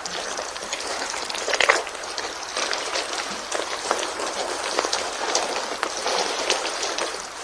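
Rain-like patter: a steady hiss of many small drops, with scattered sharper ticks throughout.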